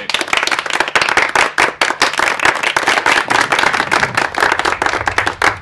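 Audience applauding: many hands clapping densely at a steady level.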